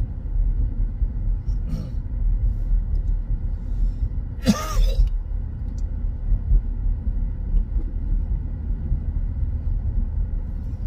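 Steady low rumble of road and engine noise inside a moving SUV's cabin, with one brief louder sound about halfway through.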